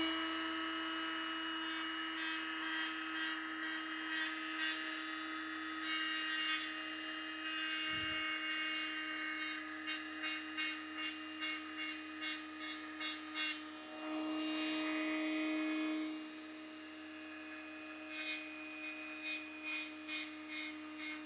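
Small electric grinder running steadily while a piston ring end is touched against it in short rasping strokes, about two a second, in runs, lightly grinding the ring end to open up its end gap.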